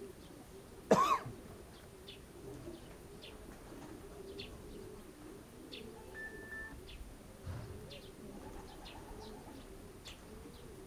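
Racing pigeons cooing steadily, with small birds chirping now and then. About a second in there is a short, loud rising squeal, the loudest sound, and a brief beep comes just past the middle.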